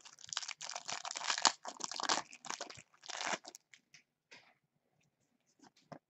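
Trading-card pack wrapper being torn open and crinkled, a dense crackle lasting about three and a half seconds, followed by a few light clicks as the cards are handled.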